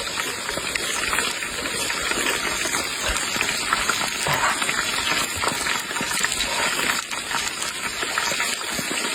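Running water rushing steadily with small splashes and knocks, as chilies and Sichuan peppercorns are washed.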